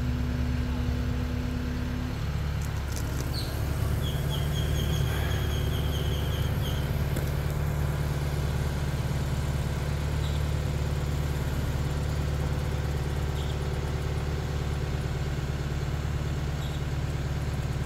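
Tadano ATF 100G-4 all-terrain crane's diesel engine running steadily, a low drone, while it holds a catamaran suspended in the air.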